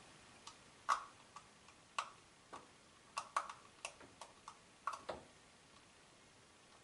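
Light, irregular clicks and taps of a small T5 Torx screwdriver working at a stuck screw inside a plastic security-camera housing, about a dozen over four seconds, stopping about five seconds in.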